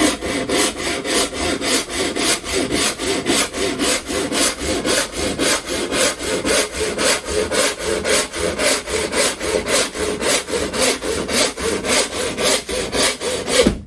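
Handsaw cutting through a piece of timber trim in quick, even back-and-forth strokes, about three a second, stopping abruptly near the end.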